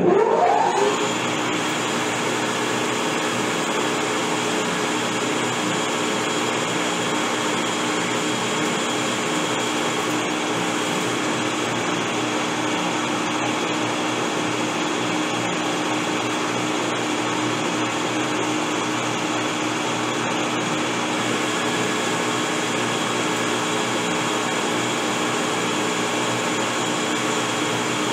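Metal lathe spindle spinning up with a rising whine, then running steadily with a constant motor hum and whine. A single-point tool is turning a stainless steel rifle barrel's thread tenon down to its major diameter.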